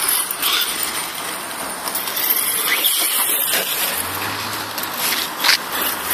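HSP Brontosaurus Pro electric RC monster truck driving from asphalt onto grass: steady motor whine and tyre noise, with a few short louder surges as the throttle is opened, the strongest near the end.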